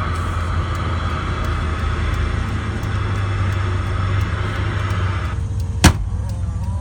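Truck engine running steadily, heard from inside the cab with a hiss over it. The hiss cuts off suddenly near the end, and a single sharp knock follows.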